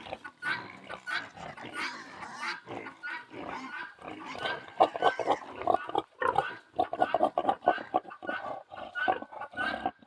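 Several pigs grunting in quick, short bursts, getting louder and busier about halfway through.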